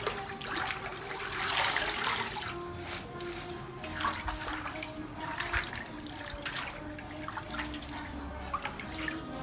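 Water sloshing and splashing in intermittent bursts as hands swish leafy greens around a large metal basin of water, over background music with a steady melody.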